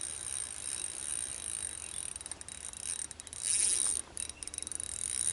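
Fishing reel clicking and whirring in stop-start runs of rapid ticks while a hooked fish is played, the reel's drag and gears working against the fish.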